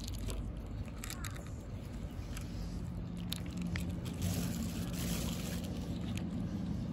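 Cats eating dry kibble and wet cat food: irregular crunching clicks and wet chewing. A steady low hum comes in partway through.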